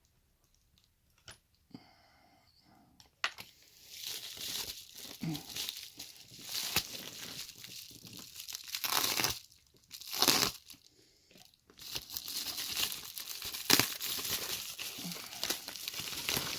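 A package being torn open by hand, its wrapping tearing and crinkling in irregular spells with short pauses, after a quieter first few seconds.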